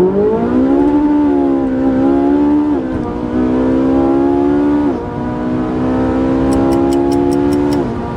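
Ferrari 458 Italia's naturally aspirated 4.5-litre V8 accelerating hard from a launch-control start. The pitch climbs at first, then drops at quick upshifts about 3 and 5 seconds in and again near the end.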